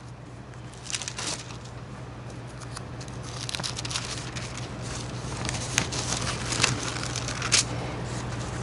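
Thin Bible pages being leafed through and a sheet of paper rustling: a run of soft crinkles and sharp page flicks, sparse at first and busier from about three seconds in, over a steady low hum.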